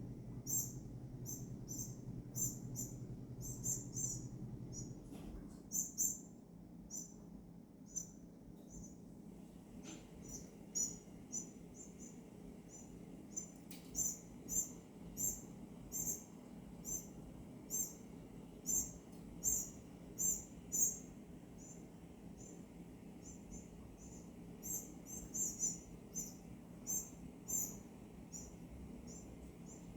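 Northern cardinals giving sharp, high chip calls, repeated irregularly in quick clusters of several a second with short pauses, over a faint steady low hum.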